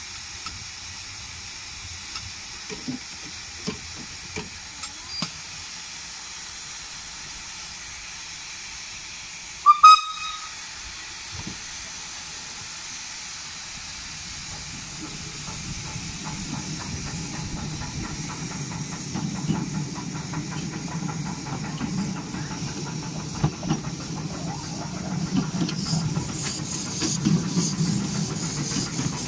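Tinkerbell-type 7¼-inch gauge miniature steam locomotive hissing steam while it stands, with one short loud whistle toot about ten seconds in. From about halfway it moves off and works up a 1-in-50 gradient, its running noise growing steadily louder.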